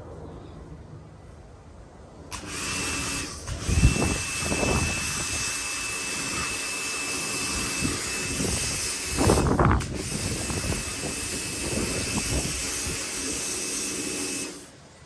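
Pressure washer spraying: hissing spray with a steady high whine. It starts about two seconds in, drops out briefly twice, and cuts off near the end.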